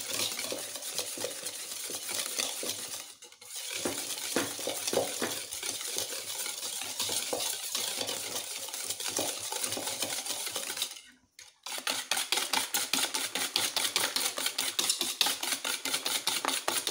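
Wire whisk beating eggs and sugar in a bowl: a rapid, steady clatter of the whisk wires against the bowl, pausing briefly twice, about 3 and 11 seconds in.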